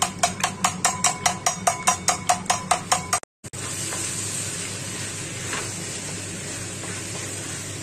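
Metal spoon beating eggs in a stainless steel bowl: a quick, even clinking, about five or six strokes a second. After a short cut about three seconds in, a steady sizzle of macaroni pasta frying in a pan.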